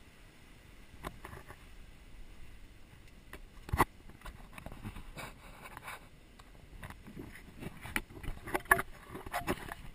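Scraping and knocking of a handheld camera carried by someone on foot, with footsteps that come thicker in the last few seconds. One sharp, louder knock about four seconds in.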